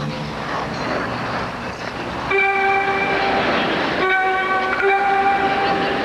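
Skating-program music: about two seconds of hissing, noisy sound, then two long, steady, whistle-like held chords, one after the other with a brief break between them.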